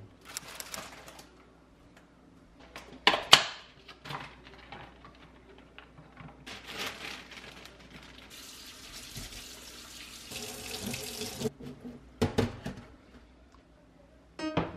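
Kitchen tap running into a sink for about three seconds past the middle, among scattered clacks and clinks of dishes and utensils; the loudest clack comes about three seconds in.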